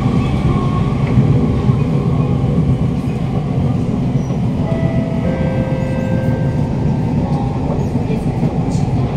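Interior running noise of a Siemens C651 metro train car in motion: a loud, steady rumble from the traction motor and the wheels on the track. A few steady whining tones come in about halfway through.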